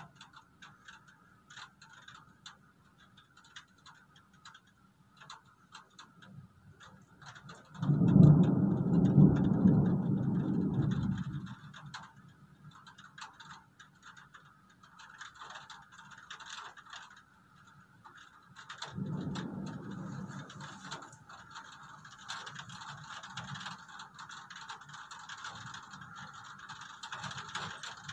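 Thunder rumbling twice: a louder rumble about eight seconds in that lasts some three seconds, and a weaker one near nineteen seconds. Underneath is a steady background of fine crackling clicks from the storm's rain.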